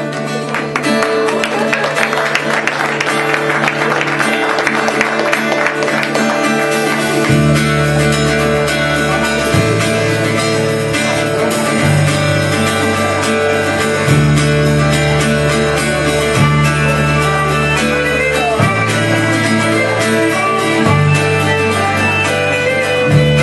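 A live band playing Celtic-style music: a strummed acoustic guitar and fiddle, with electric bass and the full band coming in about seven seconds in, the bass notes changing every two seconds or so.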